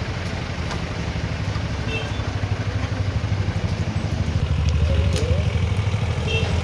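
A motor vehicle's engine running with a low, pulsing rumble that grows louder a few seconds in.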